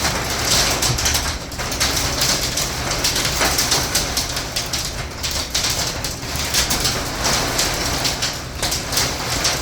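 Heavy rain and wind of a tornado-warned thunderstorm: a loud, steady rushing hiss with a low rumble underneath.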